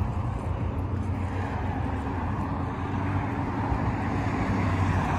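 Road traffic going by on a busy multi-lane road: a steady rumble of passing cars, with a low steady engine hum underneath.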